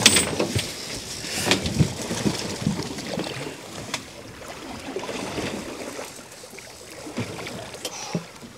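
Sea water splashing and sloshing against the boat's side as a large common skate is slid overboard and held in the water for release. A few sharp knocks stand out, the loudest at the start.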